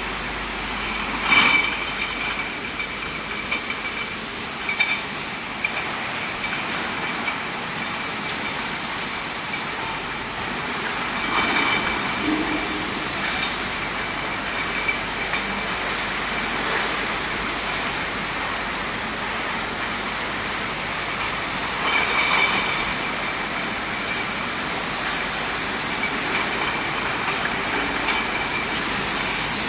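Industrial bottle decapping or washing machinery running with a steady mechanical clatter and hiss under a faint high whine. A louder swell comes roughly every ten seconds.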